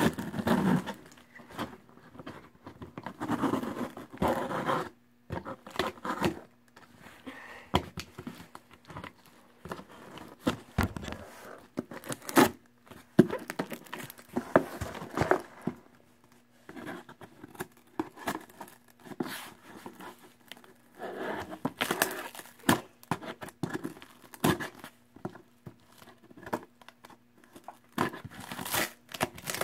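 Clear plastic packing tape being cut at with scissors and peeled off a cardboard box: irregular tearing and crinkling of the tape, with short clicks and scrapes against the cardboard.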